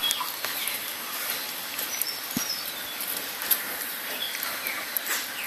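Faint high bird chirps, including a short run of falling notes about two seconds in, over scattered soft ticks and scratching sounds.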